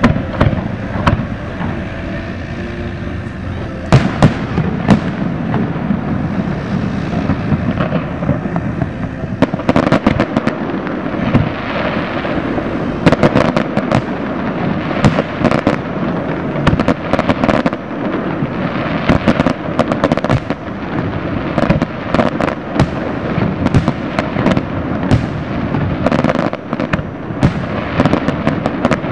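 Aerial fireworks display: a sharp bang about four seconds in, then from about ten seconds on a dense, steady run of bangs and rapid crackling pops.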